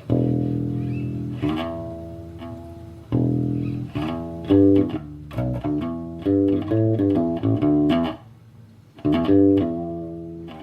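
Electric bass (a Fender Squier P bass with a jazz bass pickup and its stock bridge) played fingerstyle through an Ampeg Micro-VR head and 1x12 cabinet. A few long ringing notes, then a quicker run of notes, a short pause, and more notes near the end.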